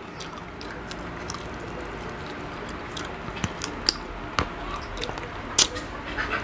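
Close-up eating sounds: a person chewing and biting into cooked field frog, with a handful of sharp wet clicks over a steady faint background.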